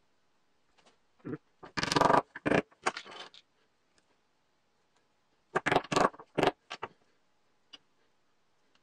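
Two bursts of clattering knocks and clicks, like small wooden parts and tools being handled and set down on a workbench, with a single faint tick near the end.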